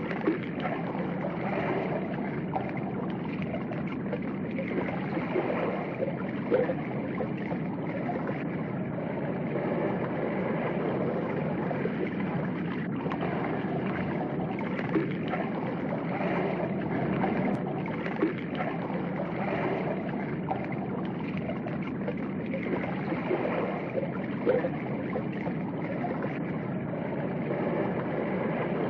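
Steady ambient noise in front of a reef aquarium tank: a constant wash of circulating water and room sound, with a few faint brief knocks.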